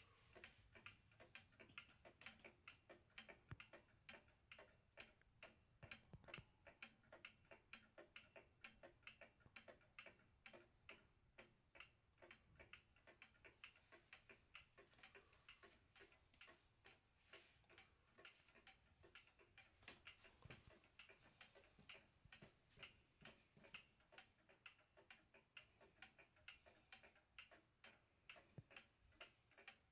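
Antique Japanese Vessel-brand (帆船時計) spring-driven pendulum wall clock ticking: a faint, steady, even tick-tock from its escapement.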